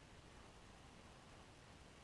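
Near silence: a faint steady background hiss.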